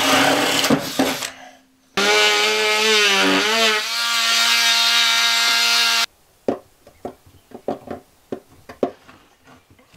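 Power drill running in two bursts, its motor pitch dipping and recovering briefly in the second burst before holding steady, then cutting off abruptly. After that come a few small clicks and knocks of wires being handled and twisted into a wire connector.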